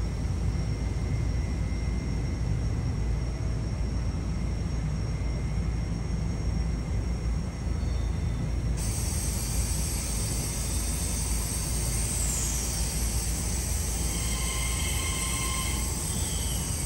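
New Intercity Fleet (Mariyung) double-deck electric train moving slowly past, with a steady low rumble of its wheels on the track. About nine seconds in a steady hiss comes in, followed by a brief falling whine.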